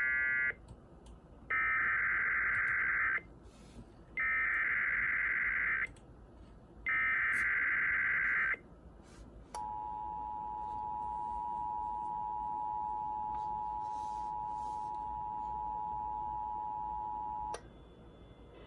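Emergency Alert System SAME header: three harsh digital data bursts of about a second and a half each, separated by short gaps. They are followed by the EAS two-tone attention signal, a steady dual tone of about 853 and 960 Hz held for about eight seconds, which cuts off abruptly.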